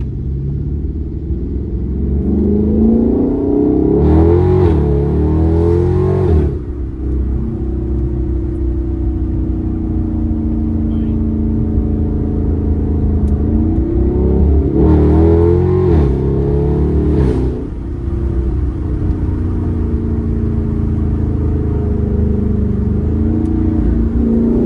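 Car engine and exhaust under hard acceleration, twice: the pitch climbs for a couple of seconds, then a loud rasp holds for about two seconds and cuts off sharply as the throttle is lifted. Between pulls the engine drones steadily at cruise, and a third pull begins near the end.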